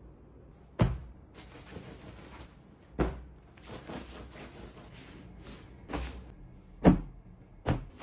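Bedding being handled and a sticky lint roller run over the sheets and a pillow: soft fabric rustling broken by about five sharp thumps, the loudest about seven seconds in.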